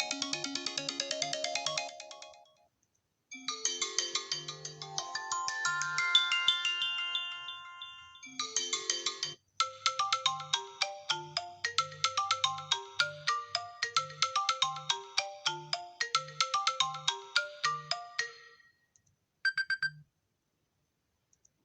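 iPhone XR ringtones playing one after another: short melodic electronic tunes of chimes and plucked tones. One ends about two and a half seconds in, and a new one starts after a brief gap. Further tunes start about nine seconds in, with a short blip of a tone near the end.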